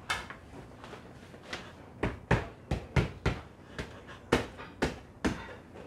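About a dozen sharp, irregularly spaced knocks and taps as rigid PIR foam insulation boards are worked into place between timber roof rafters, the loudest in the middle of the stretch.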